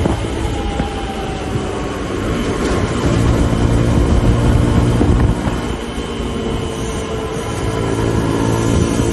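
Suzuki DR150's single-cylinder four-stroke engine running hard at speed, with wind and road noise. It gets louder for about two seconds in the middle, then eases off suddenly.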